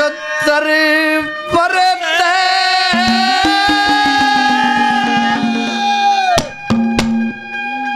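Indian folk music: a held, steady melody line over hand-drum strokes, with a quick run of drum beats in the middle that stops for a moment about six and a half seconds in.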